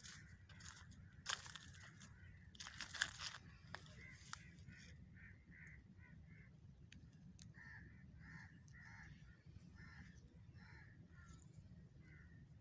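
Faint crunching in dry leaf litter over the first few seconds, typical of footsteps on a forest floor. Then a bird gives short calls over and over, about two a second, until the end.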